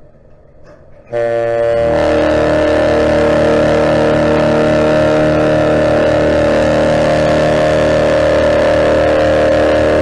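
Ship's horn of the 1000 ft Great Lakes freighter James R Barker, sounding one long, loud, steady blast of several deep tones together; it starts suddenly about a second in and is still held at the end.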